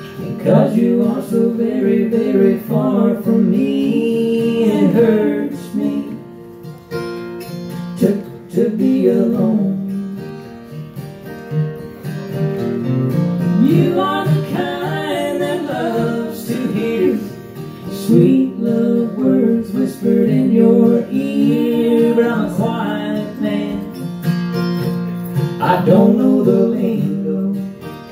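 Acoustic guitar strumming and a fiddle playing a country song, with a sung melody line.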